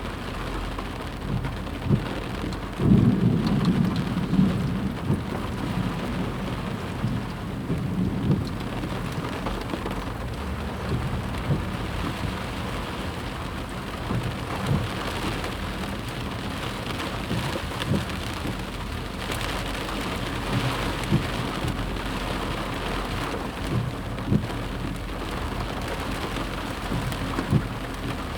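Heavy rain falling steadily in a storm, with scattered low rumbles; the loudest rumble comes about three seconds in.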